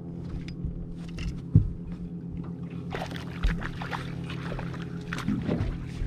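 A small hooked bass splashing at the surface beside a boat as it is reeled in and netted, with clicks and knocks of tackle and a sharp knock about a second and a half in, over a steady hum.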